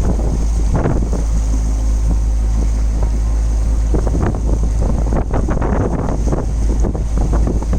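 Wind buffeting the microphone aboard a sailing boat under way, a constant deep rumble with gusty rushes. A steady hum sits underneath from about one to four seconds in.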